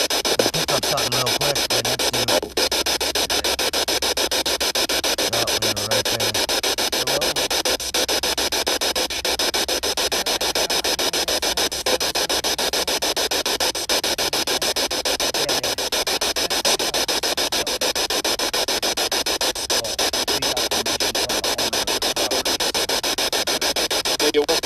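Steady hiss of static with a fine, rapid flutter, unbroken throughout.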